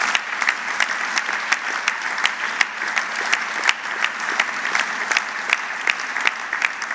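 Large seated audience applauding steadily, with many sharp individual claps standing out.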